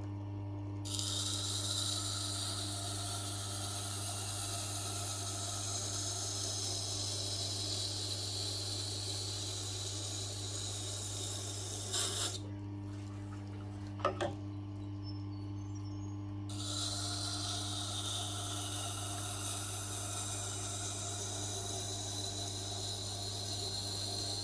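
Tormek sharpener's motor humming steadily while a knife edge held in a jig is passed along the turning wheel, with a continuous hissing grind. This is the last pass at 320 grit before honing. The grinding stops for about four seconds past the middle, with a couple of clicks as the blade is repositioned, then resumes.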